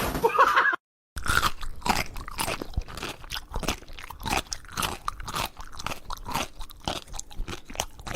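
Chewing on something crunchy: rapid, irregular crunches, several a second, starting about a second in.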